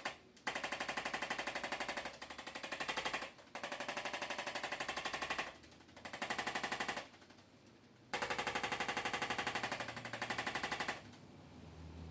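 Handheld chiropractic adjusting instrument firing rapid taps, about a dozen a second, in four bursts of one to three seconds with short pauses between. This is a low-force instrument adjustment along the spine, run at a gentler setting.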